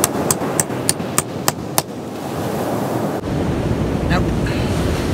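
Hammer striking a steel chisel set into a hard cracker nodule boulder: seven quick, ringing metallic strikes in the first two seconds, about three a second, as he tries to split the nodule open. Surf and wind run steadily behind.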